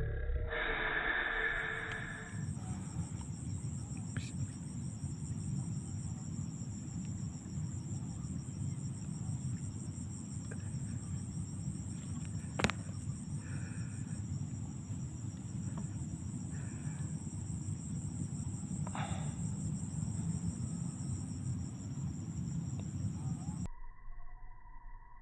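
Insects trilling steadily and high-pitched, like crickets, over a low steady rumble. A single sharp click comes about halfway through, and everything cuts off suddenly near the end.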